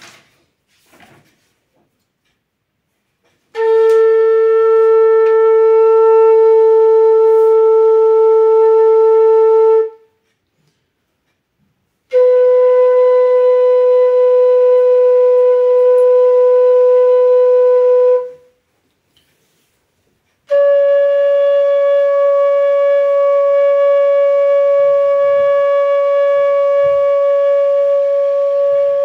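Bansuri (bamboo transverse flute) playing three long held notes, each a step higher than the last, with short breaks for breath between them: long-note sargam practice.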